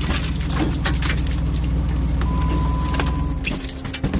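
Jeep Wrangler's 3.6-litre V6 engine running under load as it crawls over rock, with scattered knocks and creaks from the vehicle. The engine sound drops away about three and a half seconds in.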